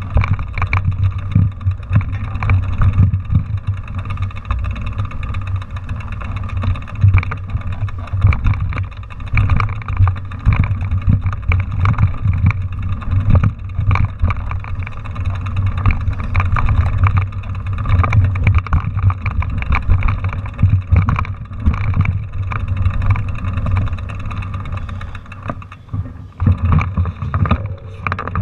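Mountain bike riding over a rough, rocky dirt trail, heard through a handlebar-mounted camera: constant rattling and knocking as the bike and mount jolt over bumps, over a low rumble of wind on the microphone.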